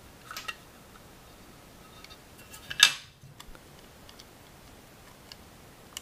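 Light clicks and taps from hands handling an opened external hard drive's case, circuit board and cable, with one brief, louder clack a little under three seconds in.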